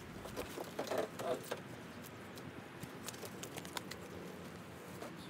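Faint, irregular clicks and light knocks, a louder cluster about a second in, from a drum of corrugated plastic sheet ringed with car tyres being lifted and moved by hand.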